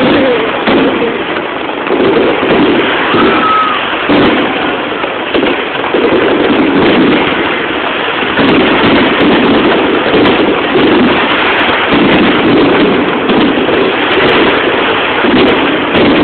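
Aerial fireworks bursting in a dense, continuous barrage of bangs and crackling, with a sharper bang about four seconds in.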